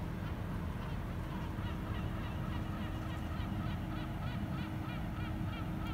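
A bird calling in a fast run of short notes, each rising and falling in pitch, about three a second, starting a second or so in. Under it is a steady low noise.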